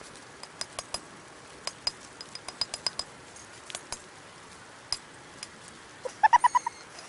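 Sharp, irregular clicks and ticks, then near the end a quick run of about five short, high-pitched calls from a cat reaching up for the offered food, which are the loudest sound here.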